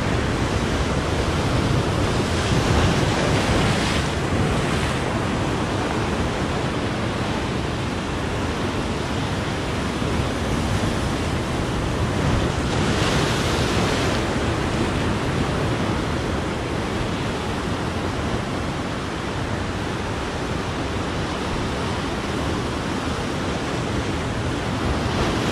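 Sea surf breaking and washing over shoreline rocks, a steady rush that swells louder about three seconds in and again around thirteen seconds. Wind buffets the microphone.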